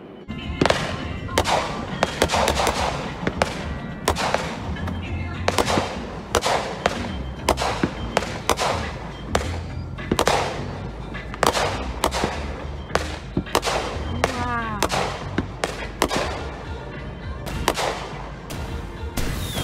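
Fireworks going off: a continuous, irregular series of sharp bangs, roughly one or two a second, many with a short echoing tail.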